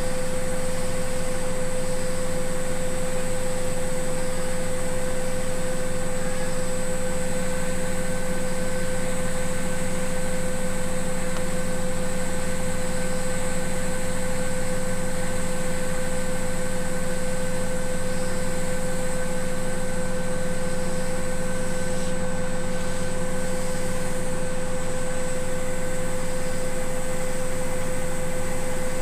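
Indesit BWSE 81293X front-loading washing machine running, a steady high motor whine over a low hum that holds unchanged throughout.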